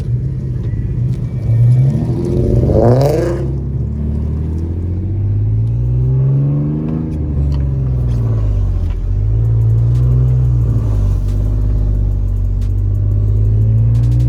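Car engine revving hard, its pitch climbing steeply about two to three seconds in, then running under acceleration with its note rising and falling several times.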